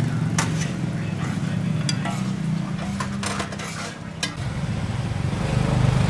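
A metal utensil clinks against a shallow metal frying pan about six times, sharp separate strikes spread over the first four seconds, while glutinous-rice cakes fry in the pan.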